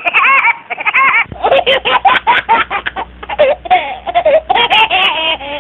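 Laughter sound effect: high-pitched giggling laughter in quick, rapid bursts, starting suddenly.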